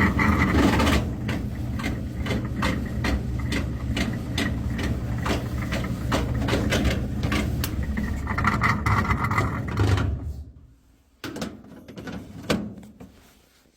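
Maytag clothes dryer running with a steady hum and a strange noise of repeated clicking, a few clicks a second, the sign of a damaged blower wheel. The dryer stops about ten seconds in, followed by a few quieter knocks.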